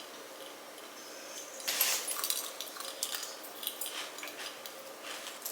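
A utensil clinking and scraping against a bowl while the crunchy kataifi, pistachio cream and tahini filling is mixed. The scraping is sporadic and starts after a quiet second or so.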